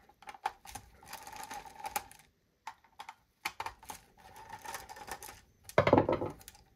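Hand screwdriver backing small screws out of the back of a card reader: a run of small clicks and scrapes, with a faint steady tone under them for about two seconds, twice. About six seconds in comes a louder clatter as the screwdriver is put down on the wooden bench.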